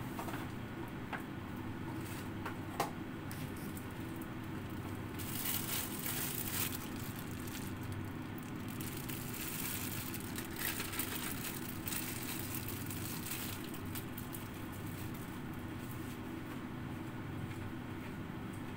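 Covered pots simmering on a gas stove: a steady low hum with soft, irregular crackling, louder for a couple of seconds about five seconds in and again about ten seconds in.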